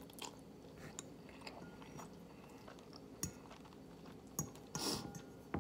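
Quiet chewing of a mouthful of noodles, with scattered light clinks of a metal fork against the bowl. A short, louder hissing noise comes near the end.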